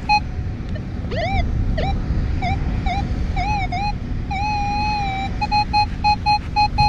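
Metal detector audio responding to a buried target: a string of electronic tones that glide up and down in pitch, ending in one longer held tone. Before and after them comes a short repeating beep, about three to four a second near the end.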